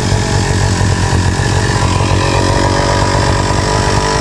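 Two-stroke brush cutter (weed whacker) engine running steadily just after being pull-started: it has caught and keeps running.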